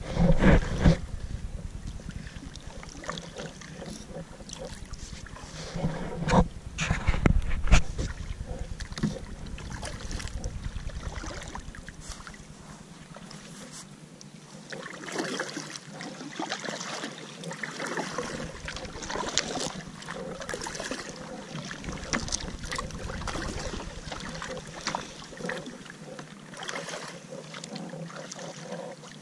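Kayak paddling on calm water: the paddle blade dipping and water splashing and dripping in irregular strokes. Gusts of wind rumble on the microphone near the start and again about six to eight seconds in.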